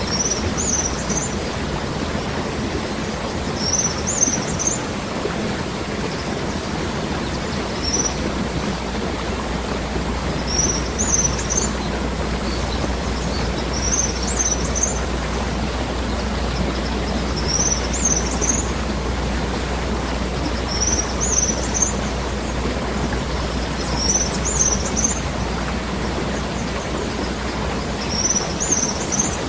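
Steady rush of a waterfall, with a bird repeating a short high call every three to four seconds.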